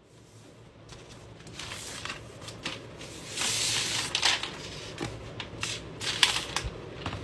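A MacBook Pro's cardboard box and paper packaging rustling and scraping as it is handled and the laptop is lifted out of its tray. A longer sliding hiss comes about three and a half seconds in, and there are a few sharp taps near the end.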